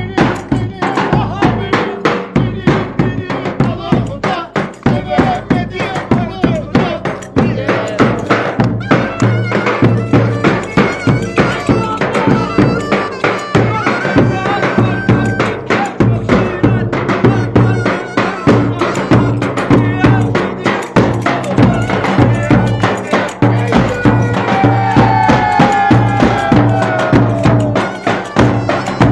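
Turkish village-wedding folk dance music: fast, steady drumming with a melody instrument playing over it.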